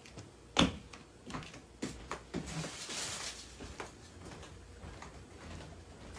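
Quiet knocks, clicks and a brief rustle of movement in a small room, the loudest knock about half a second in. Then only faint room tone.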